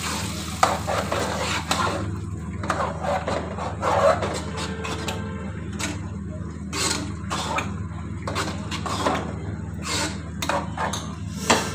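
Onion slices frying in hot oil in a nonstick pan for a tempering, their sizzle fading out about two seconds in. Then come scattered knocks and clinks of utensils against the pan and a metal pot, over a steady low hum.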